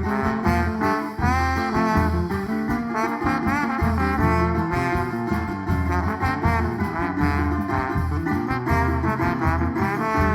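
A band playing an instrumental passage between sung verses: a lead melody line with pitch bends over bass and a steady beat.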